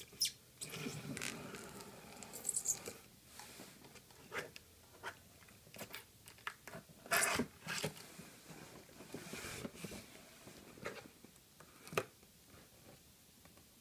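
A small knife slitting the packing tape along the seam of a corrugated cardboard shipping box: irregular scratching and scraping of the blade on tape and cardboard, with taps and rustles as the box is handled. The loudest scrape comes about seven seconds in, and there is a sharp click near the end.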